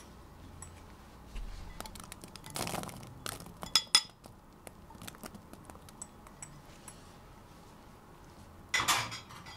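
Diced red and green bell peppers tipped into a glass bowl of pancake batter: a run of light patters and taps, with two sharp clinks against the glass bowl just before four seconds in. Near the end comes one short burst of rustling clatter.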